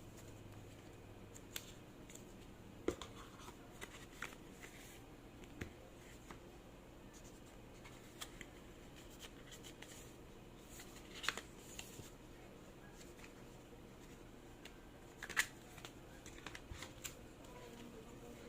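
Hands handling a phone box and its contents: scattered light taps, clicks and rustles, with three sharper clicks spread through.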